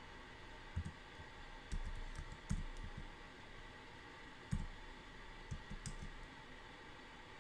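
Computer keyboard keystrokes: faint, irregular taps in small clusters with pauses between them as a short code is typed.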